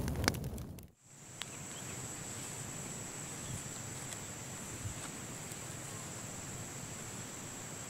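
Loud crackling with sharp clicks cuts off abruptly about a second in. What follows is quiet forest ambience with a steady, high-pitched insect drone.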